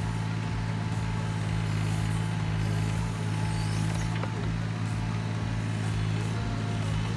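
Mini excavator's diesel engine running steadily under load while digging a post hole, with a faint click a little past the middle.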